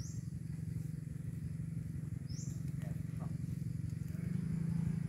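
A small engine runs steadily with a low pulsing hum, getting louder about four seconds in. A short high rising chirp sounds twice, about two and a half seconds apart.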